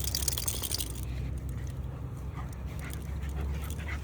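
Dogs moving about on a walk: a brief rustle in the first second, then faint small sounds of their movement over a low steady rumble.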